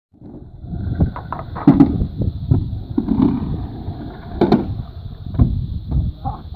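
Stunt scooter rolling on skatepark concrete, its wheels rumbling, with several sharp clacks as the deck and wheels strike the ramp and ground.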